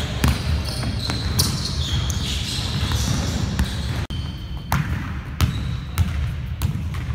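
Basketball dribbled on a wooden sports-hall floor. Its bounces come in a steady rhythm, about one and a half a second, in the second half.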